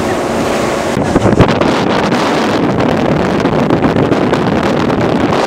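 Wind buffeting the microphone on the open deck of a moving cruise boat, over the boat's steady running noise and the rush of water, with a few stronger gusts about a second in.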